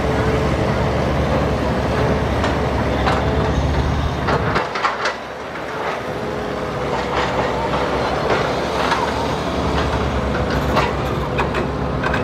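Crawler excavator's diesel engine running under hydraulic load as it digs and swings, with scattered sharp knocks from the bucket and boom. The low engine note drops away for about a second around five seconds in, then picks up again.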